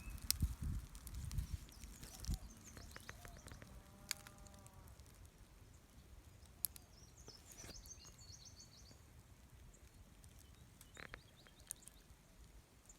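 Faint outdoor ambience with distant small birds chirping in short quick series, around the middle and again near the end. There are a few soft knocks and rustles in the first couple of seconds and scattered clicks.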